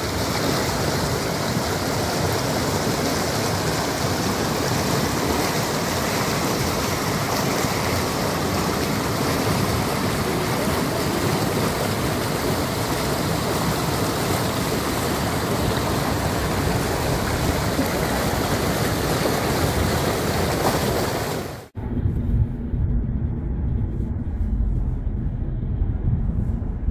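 Air rushing over the microphone during a fast descent, a loud, steady hiss. It cuts off abruptly about 22 seconds in, giving way to a lower, buffeting rumble with a few clicks.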